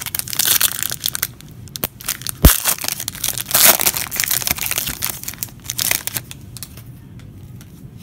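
Foil trading-card pack wrapper crinkling as it is handled and torn open by hand, with one sharp snap about two and a half seconds in. The crinkling dies down after about six seconds.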